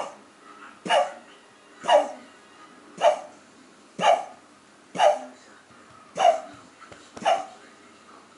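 Cocker spaniel puppy coughing in a steady series: eight short coughs, about one a second.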